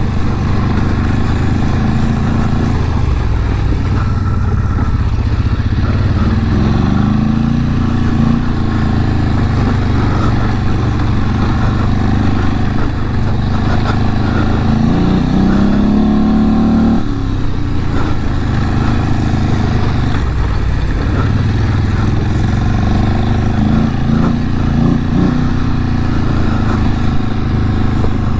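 850 cc Polaris ATV engine running under way on a gravel track, heard from on board over a steady rush of wind and tyre noise. Its pitch rises and falls with the throttle, climbing about halfway through and holding higher for a couple of seconds before dropping back sharply.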